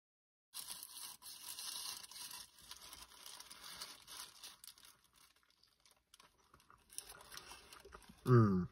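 A burger's paper wrapper crinkling and rustling as it is handled, with biting and chewing after it. Near the end, a man gives a short, loud 'mmm' hum.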